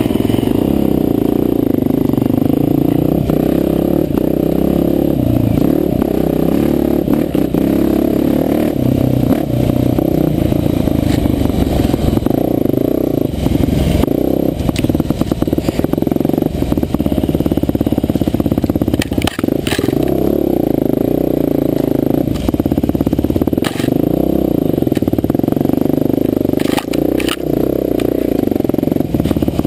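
Trail motorcycle engine running steadily under load as the bike rides a rough single track, the note wavering with the throttle. Scattered knocks and scrapes sound from the bike and the scrub it pushes through, strongest around the middle and near the end.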